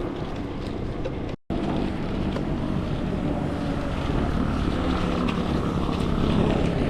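Steady wind and road noise of a mountain bike being ridden with an action camera, with a low engine hum from motor traffic. The sound drops out for an instant about a second and a half in.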